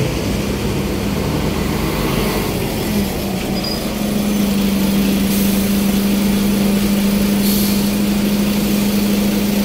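Diesel city buses at a stop: a bus engine hums steadily, shifting up a little in pitch around three seconds in as a MAN single-decker pulls in, then idles. Two short hisses of compressed air come from the bus's air system, about halfway through and again two seconds later.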